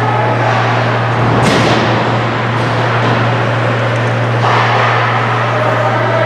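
Ice hockey game sound in an arena: a steady low hum under the general noise of play, with one sharp crack about a second and a half in.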